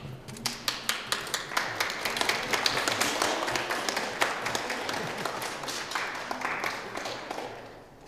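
Applause from a small crowd: many hands clapping in a dense, irregular patter that fades out near the end.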